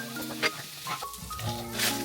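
Background music with light kitchen sounds over it: a sharp click or knock about half a second in, and a brief hiss near the end.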